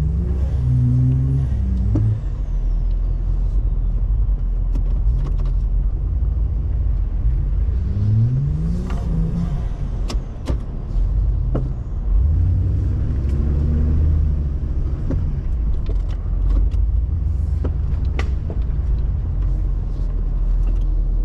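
Nissan GU Patrol's LS3 V8 engine running steadily at low revs while crawling over a muddy track, with the revs rising briefly about eight seconds in and again around thirteen seconds. Scattered sharp knocks and rattles sound over the engine.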